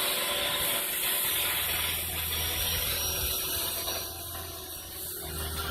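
Caterpillar 247 tracked skid steer running steadily: a low engine drone under a dense, steady hiss.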